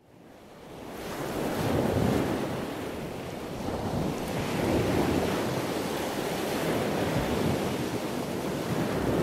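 Steady rushing of wind and surf, fading in over the first couple of seconds and swelling and easing every few seconds.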